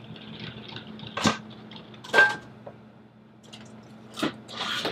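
Steady low electrical hum with a few soft knocks and a brief squeak, then a short rustle near the end: someone moving about a small room.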